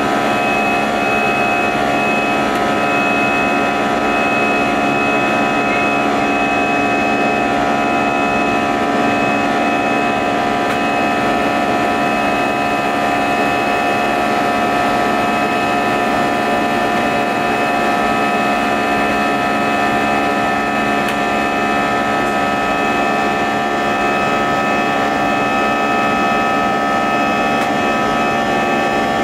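Airbus A320-200 jet engines and airflow heard inside the passenger cabin during the climb after takeoff: a steady rush of noise with several fixed high tones running over it.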